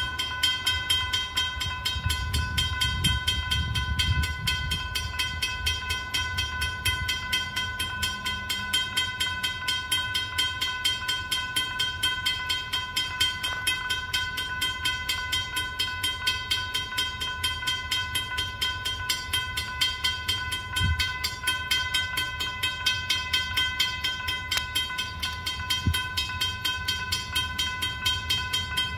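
Railroad grade-crossing warning bell ringing in a fast, steady rhythm of metallic strokes, the sign that the crossing is activated for an approaching train.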